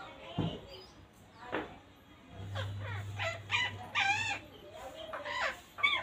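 Rose-ringed parakeets calling: a string of short chattering calls that bend in pitch, clustered most thickly in the middle and last second.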